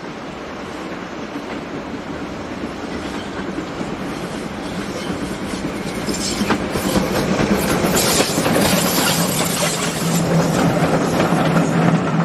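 Ivatt Class 2MT 2-6-2T steam tank locomotive working a train past at close range. The sound grows louder over the first several seconds, then stays loud as the engine and its coach go by, with a run of clicks from the wheels crossing rail joints.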